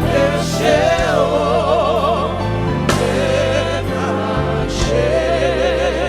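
Gospel worship song: voices singing with vibrato over a band with bass, keyboard and drum hits.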